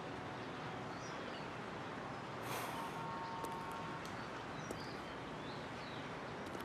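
Outdoor street ambience: a steady hum of traffic, with a short hiss about two and a half seconds in and a few faint high chirps.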